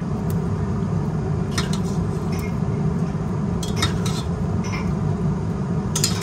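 Several light metallic clinks and knocks from a stainless steel cooking pot as leafy greens are pushed into simmering soup, over a steady low rumble.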